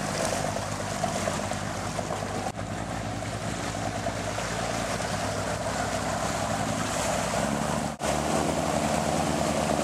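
Boat engine running steadily under way, a low hum mixed with rushing water from the wake and wind on the microphone. There are two brief dropouts, about two and a half and eight seconds in.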